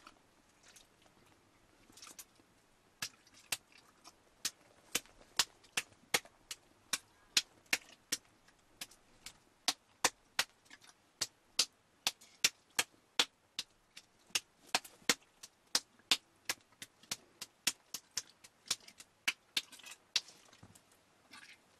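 Hands slapping and squeezing a soft, wet lump of food over a pot, with sharp slaps about twice a second that start a few seconds in and fade out near the end.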